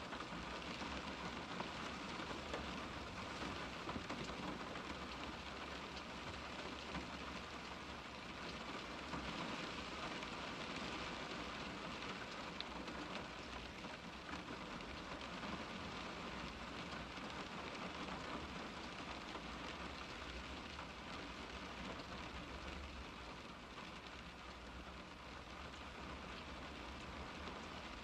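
Steady rain falling on a car's glass, heard from inside the car: a dense patter of drops.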